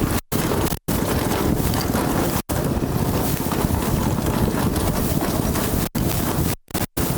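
Heavy wind buffeting on the microphone, a dense low rumble broken by several sudden brief dropouts.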